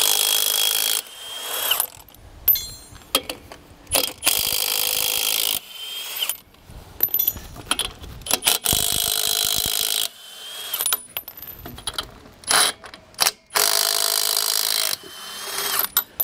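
Milwaukee M18 FUEL 1/2-inch high-torque cordless impact wrench hammering on a wheel's lug nuts, in several runs of a second or two each, a few seconds apart, with short clicks in between as it moves from nut to nut.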